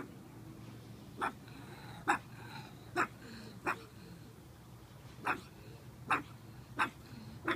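Pug puppy giving short, sharp yaps, about eight of them at uneven intervals, as it plays at chasing a shadow.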